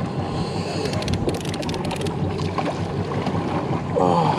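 Steady low rumble of a fishing boat idling, with wind on the microphone. A quick run of sharp clicks sounds about a second in.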